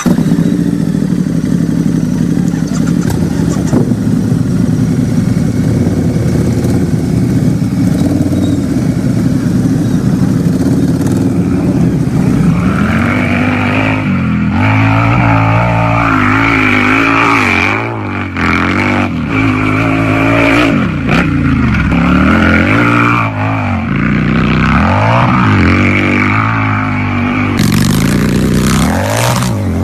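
Harley-Davidson motorcycle's V-twin engine idling steadily, then from about twelve seconds in revved repeatedly, the pitch rising and falling with each blip of the throttle.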